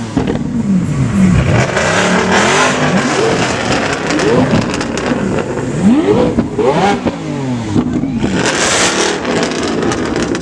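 A performance car's engine revved hard several times through a loud exhaust, its pitch climbing and dropping with each blip, with sharp cracks in between.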